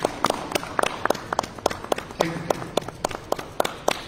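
Audience applauding: uneven, separate hand claps, several a second, with a voice heard briefly about two seconds in.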